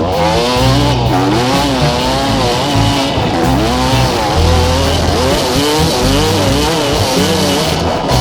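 Background music: held bass notes stepping from pitch to pitch under a lead line that bends and wavers.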